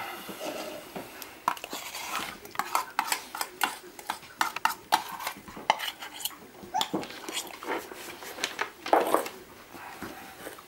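Border collie puppy eating dry puppy kibble from a stainless steel bowl: quick, irregular clinks and rattles as the kibble and the puppy's muzzle and paw knock against the metal.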